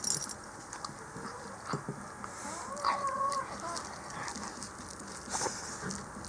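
Shiba Inu chewing and tearing raw brown bear meat: irregular wet clicks and crunches. About three seconds in, a short pitched cry lasting under a second.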